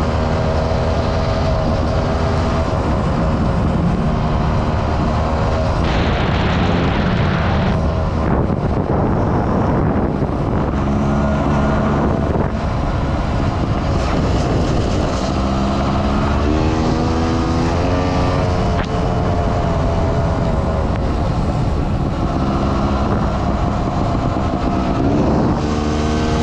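Sherco trials motorcycle engine running under way, its pitch climbing and dropping several times as it is revved through the gears, with wind noise on the microphone.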